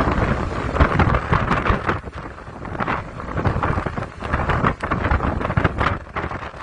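Gusty storm wind buffeting the microphone in loud, irregular rumbling gusts that ease about two seconds in, rise again, then fall off near the end.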